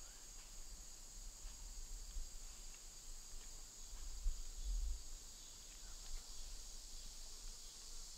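Steady, high-pitched insect chorus from the woods, with a faint low rumble underneath that swells briefly about four seconds in.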